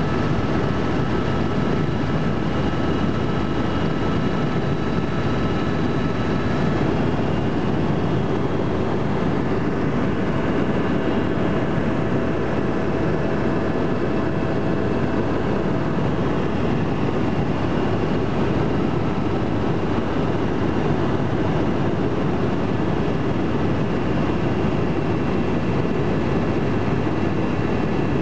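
Tour helicopter's engine and rotor heard from inside the cabin in flight: a loud, steady drone with faint high whining tones over it.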